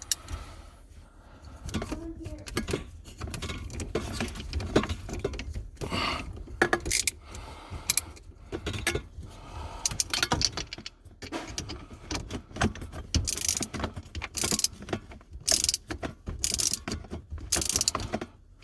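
Irregular clicks, knocks and rustling of hand work on the dishwasher's drain hose connection as it is reconnected and tightened back up.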